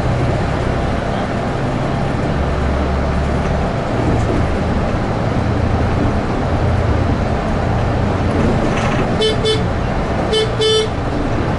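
Steady engine and road noise inside a Volvo low-floor city bus on the move. Near the end the horn sounds two pairs of short "kee kee" toots.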